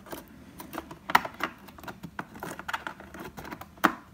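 Small, sharp clicks and taps of RAM memory modules being handled and pushed into an iMac's memory slots, with the two sharpest clicks about a second in and near the end.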